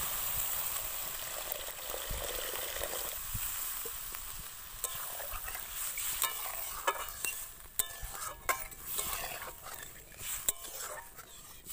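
Water pouring into a metal kadai of hot, spiced masala for about the first three seconds, then a metal spatula stirring and scraping the pan with a string of sharp clicks and knocks while the gravy sizzles.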